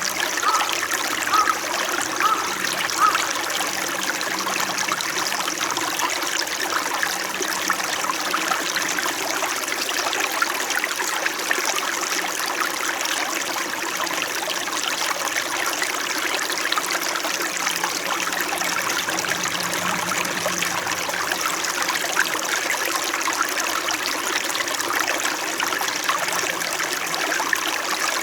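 Small mountain stream flowing steadily, a gentle, even trickling, with a few brief gurgles in the first few seconds.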